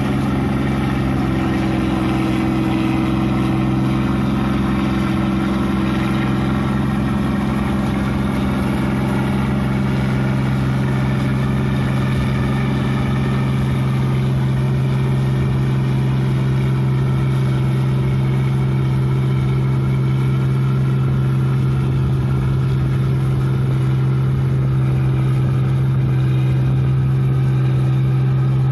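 New Holland 8060 combine harvester's diesel engine running steadily under load as the machine cuts and threshes rice in a paddy field, a constant hum that holds its pitch throughout.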